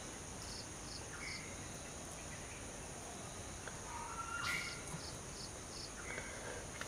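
Faint background of bird and insect calls over a steady hiss: two short runs of quick high chirps, and a short whistled note about four seconds in.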